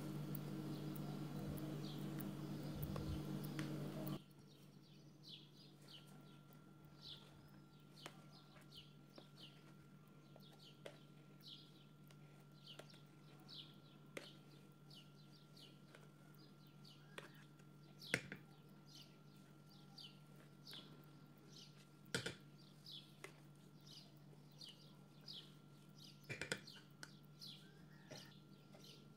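Electric hand mixer running as it whips a coffee mousse to stiff peaks, cutting off suddenly about four seconds in. After that a bird chirps faintly, a short falling chirp about once a second, with a few sharp knocks of a spatula and jug against a glass baking dish.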